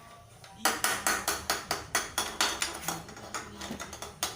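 A knife chopping on a cutting board in quick repeated strokes, about five a second, starting under a second in: fish being cut into pieces.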